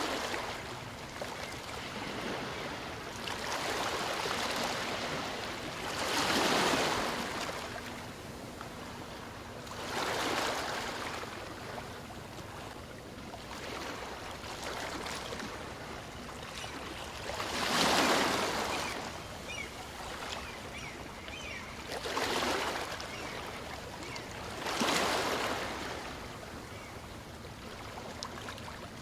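Small waves of a calm sea washing onto the shore, each wash swelling and fading every few seconds over a steady hiss of water.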